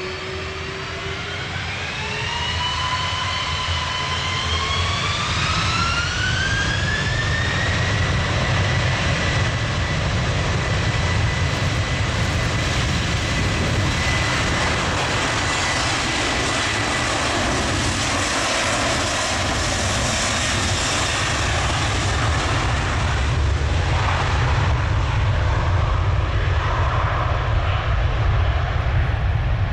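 Airbus A330-300's twin jet engines spooling up to take-off thrust: a rising whine over the first several seconds settles into a steady high tone over the roar of the take-off roll, which grows louder as the airliner accelerates past.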